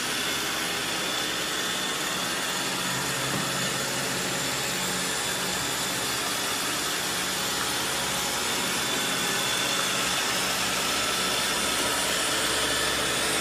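Robot vacuum cleaner running: a steady whirring hiss over a low motor hum.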